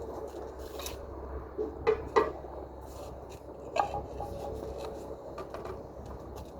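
A hand tool scraping and rubbing on tile, with a few sharp clinks of hard material on hard material; the two loudest come close together about two seconds in.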